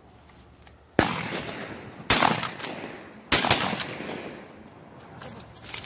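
Three shotgun shots fired in quick succession, a little over a second apart, each followed by a fading echo.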